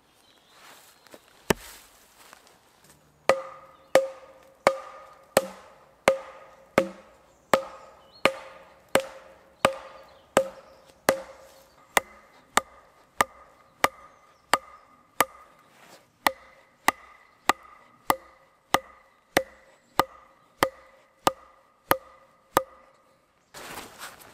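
A wooden stake being hammered into the ground with steady, evenly spaced wooden knocks, about one and a half a second, each with a short ringing tone. One knock comes first, then a run of about thirty that stops near the end.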